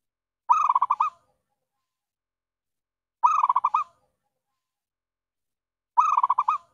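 Zebra dove (perkutut) call: a short run of quick cooing notes, given three times about two and a half seconds apart. It is played as a lure call to draw in wild zebra doves.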